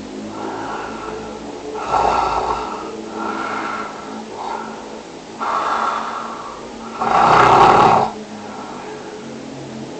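A person snoring: a run of about six snores of uneven length and loudness, the longest and loudest about seven seconds in.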